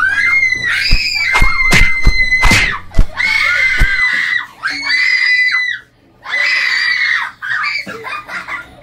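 Kids screaming on a fast-spinning teacup-style ride: a run of about six long, high, held screams. A few sharp thumps come in the first three seconds.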